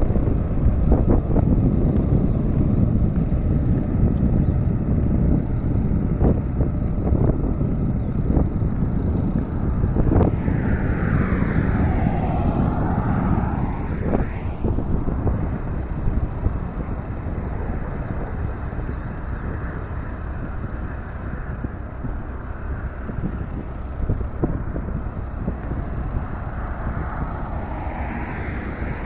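Steady low rumble of a vehicle driving along the road, with wind noise and occasional knocks. A higher whooshing sweep rises and fades from about ten to fifteen seconds in, and the rumble is a little quieter after that.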